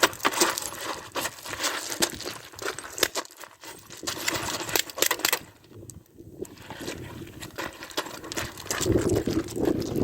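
Scuffle of a close-quarters struggle over a handgun: rapid rustling, scraping and clicking of clothing and gear, with a brief lull about halfway through.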